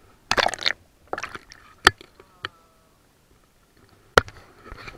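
Water splashing and knocks against the camera as it is swung close to the river surface, in several short, sharp bursts with quiet between.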